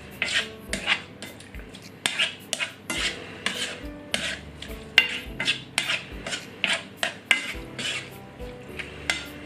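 A utensil stirring chicken pieces in a pan, knocking and scraping against the pan about twice a second.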